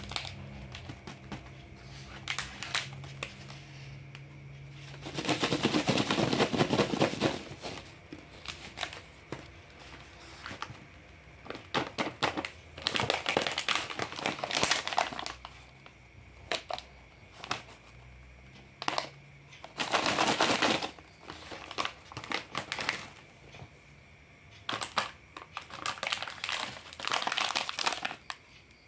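Plastic snack wrappers crinkling in irregular bursts as they are handled, loudest for a couple of seconds about five seconds in and again around twenty seconds in.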